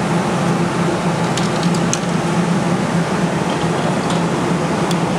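Steady arcade background din: a constant low machine hum under an even wash of noise, with a few faint clicks about a second and a half to two seconds in.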